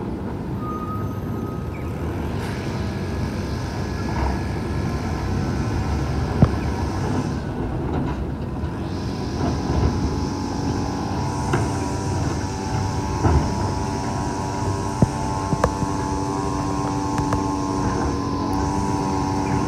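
Automated side-loader garbage truck's diesel engine running as its arm picks up and empties a trash cart; from about halfway a steady whine of the hydraulics under load sets in, with a few sharp knocks of the cart and arm.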